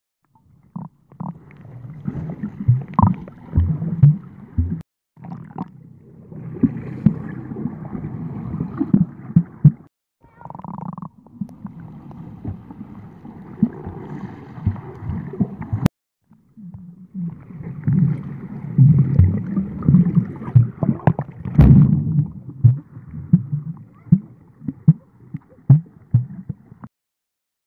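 Muffled underwater sound of swimmers, heard through a submerged camera: a low bubbling rumble with many sharp knocks and thumps from strokes and kicks in the water. It cuts out briefly three times.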